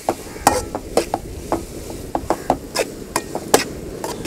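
A spatula stirring conch meat masala in an aluminium pan, scraping and clacking against the metal in irregular strokes about three a second, with the frying sizzle underneath.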